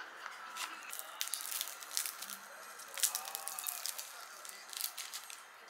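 Paper wrapper crinkling in the hands, then the flaky crust of a pretzel croissant crackling as it is torn apart: a run of dry crackles, loudest about halfway through.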